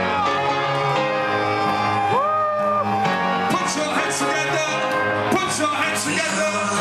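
Dance music with a sung vocal line holding long notes that slide up into pitch.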